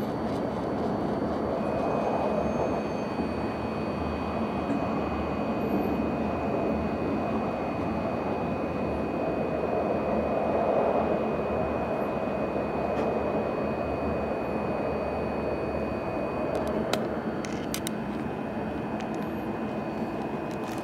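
Hokkaido Shinkansen train running, heard from inside the passenger car: a steady rumble with a thin high whine that stops about three-quarters of the way through, then a few sharp clicks near the end.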